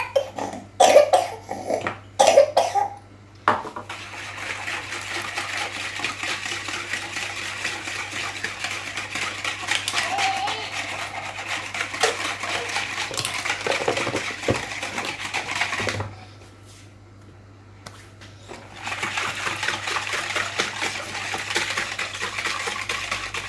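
Egg, sugar and oil being stirred together in a bowl, a steady rapid scraping. The stirring stops for about three seconds and then starts again.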